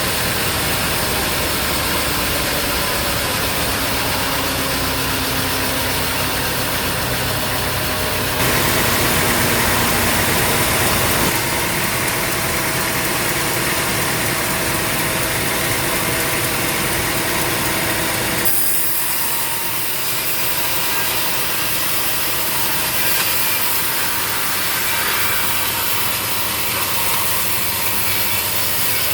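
Sawmill running: a powered saw cutting through a log over a steady engine. The sound shifts abruptly about eight seconds in, growing louder for a few seconds, and again near the middle, when the low engine rumble drops away.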